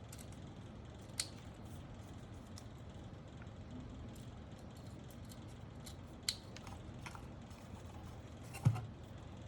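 Scissors snipping: three sharp snips, about a second in, past the middle and near the end, the last the loudest, with fainter small clicks between.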